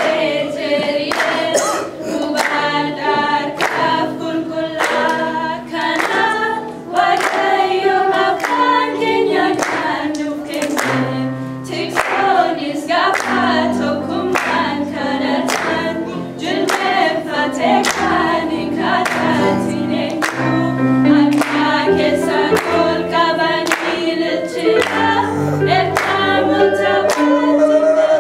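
Young girls' voices singing a worship song together, over sustained keyboard bass notes and a steady beat of sharp strikes.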